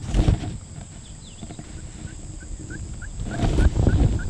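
Wild turkey gobbler calling in an open field, a short burst a little past three seconds in, with a low wind rumble at the start. A small bird's short rising chirps repeat about three times a second in the background during the second half.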